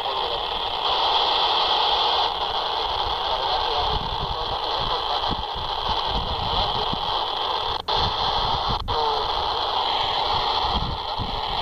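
FM static hiss from a handheld radio's speaker, its squelch open on the SO-50 amateur satellite's downlink. The hiss is steady and cuts out briefly twice, about eight and nine seconds in.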